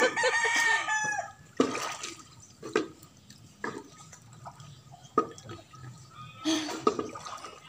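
A woman's shrill, high-pitched squealing laugh for about the first second, then quieter pool water sloshing with scattered small splashes and drips.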